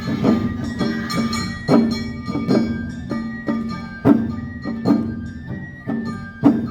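Live Awa Odori festival music from a marching band: drums, kane hand gongs, shamisen and bamboo flute playing the swinging two-beat rhythm, with a strong drum stroke about every 0.8 s over held flute notes.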